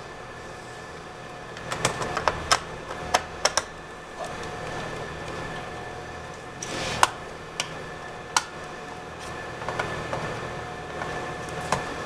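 Sharp clicks and taps of a small screwdriver and screws against a laptop's plastic bottom case during disassembly. There is a cluster about two seconds in, one louder click with a brief scrape about seven seconds in, and a few lighter taps later, over a steady faint hum.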